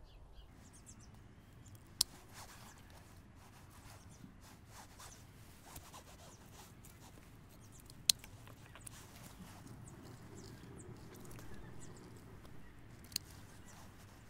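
Hand secateurs snipping through Verbena bonariensis stems, three sharp clicks of the closing blades about five to six seconds apart, with faint rustling of the foliage between the cuts.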